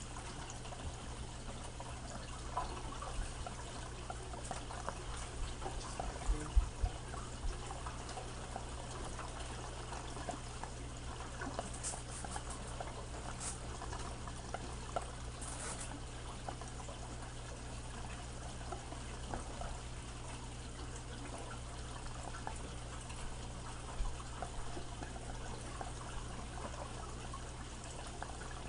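Steady trickle of water from an aquarium's filter running, with crinkling of plastic bags and a few sharp knocks about six seconds in.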